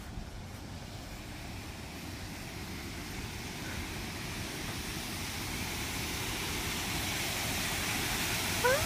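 Waterfall plunging into a limestone pothole, a steady rushing hiss that grows gradually louder. A person's voice sounds briefly near the end.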